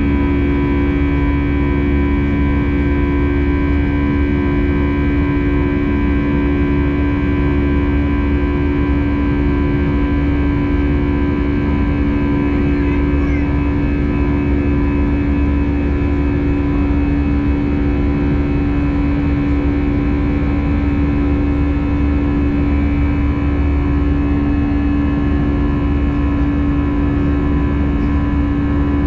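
Steady jet-engine drone heard inside an Airbus A320 cabin in flight shortly after take-off: a low rumble with a strong fixed hum and several steady tones above it, unchanging throughout.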